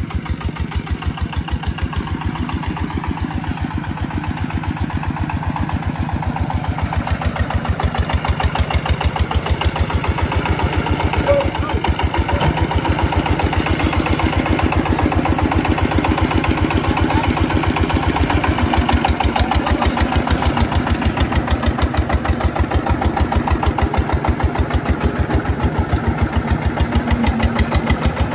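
Single-cylinder diesel engine ('máy nổ') of a homemade farm vehicle running steadily under way, with a fast, even chugging beat. It grows louder after several seconds.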